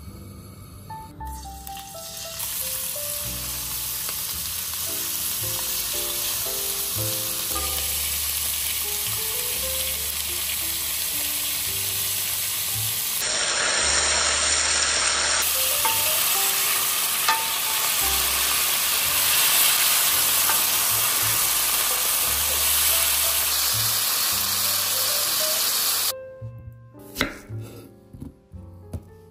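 Cubes of pork sizzling steadily in hot vegetable oil in a wok, stirred with a wooden spatula, over quiet background music. Near the end the sizzling stops and a knife clicks against a wooden cutting board, cutting an onion.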